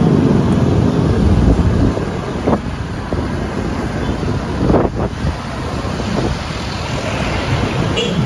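Wind rushing over the microphone with road and traffic noise while riding along a city street. There are brief knocks about two and a half and five seconds in.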